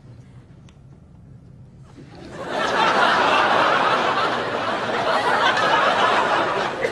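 Studio audience laughing: a loud burst of laughter from many people starts about two seconds in, holds for several seconds and begins to die away near the end.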